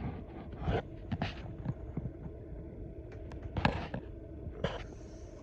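Light clicks and knocks from small die-cast toy cars being handled and set down, a few scattered taps with the loudest about two thirds of the way in, over a steady low hum.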